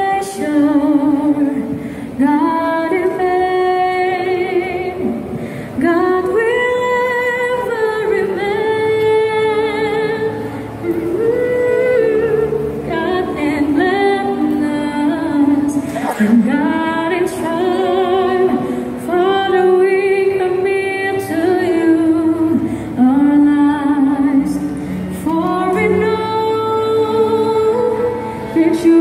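Music with a woman singing a slow melody in long held notes with vibrato.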